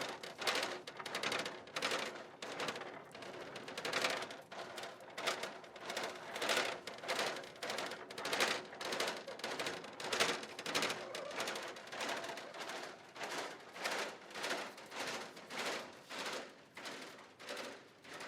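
A steady run of sharp clattering knocks, irregular, about two to three a second, each with a short ring.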